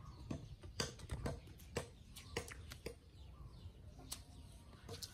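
Irregular light clicks and ticks, about eight spread over a few seconds, over a low rumble.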